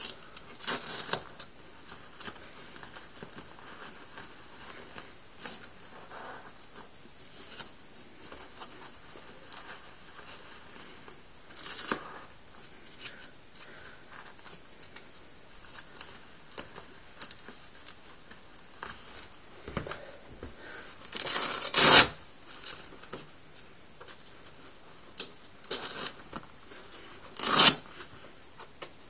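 Scattered rustles, scuffs and clicks of things being handled close to the microphone. The loudest is a longer rustle a little after twenty seconds in, with another near the end.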